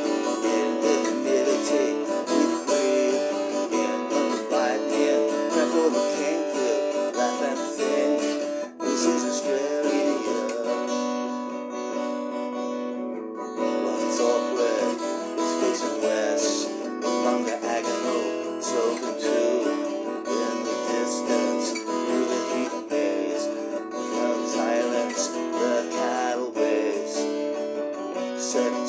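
Music: an acoustic guitar strummed steadily through a song, with a brief break about nine seconds in.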